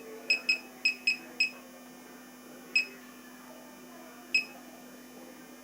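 Laser projection keyboard giving a short, high electronic beep for each key press as a word is typed: five beeps in a quick run, then two more spaced out, over a faint steady hum.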